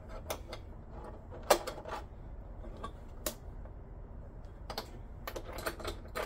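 Scattered clicks and clinks of a small metal wrench and bolts working on a metal TV-mount bracket on the plastic back of a TV, the sharpest click about a second and a half in and a quicker run of clicks near the end.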